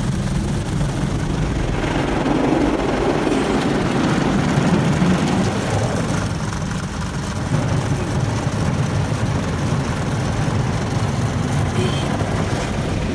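Automatic car wash heard from inside the car: water spraying over the windows while the wash brushes and machinery run with a steady rumble, a little louder a few seconds in.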